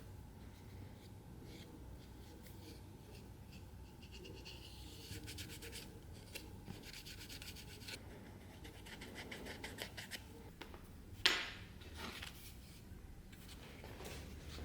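Soft, repeated scratching and rubbing strokes of hand work on a workpiece, with one sharper, louder scrape about eleven seconds in.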